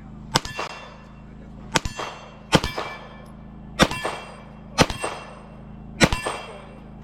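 9mm pistol fired six times at an uneven pace, each shot followed by the ring of a struck steel target.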